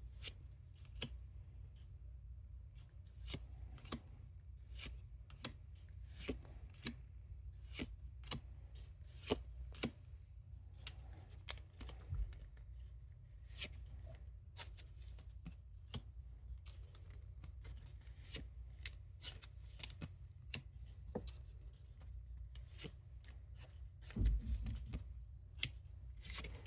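Pokémon trading cards being slid and flicked through one by one from a freshly opened pack: a long run of crisp card snaps and rustles, one or two a second, over a faint low hum, with a louder thud about 24 seconds in.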